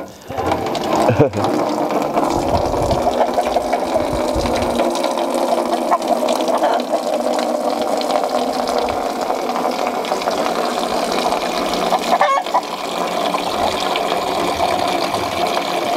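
A flock of chickens clucking and murmuring without pause as they peck at scattered corn.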